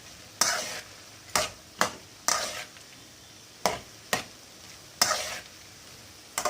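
Sweet corn kernels being stir-fried in a kadai with butter and spices: about ten short scraping strokes of the stirring utensil against the pan at irregular intervals, over a light sizzle.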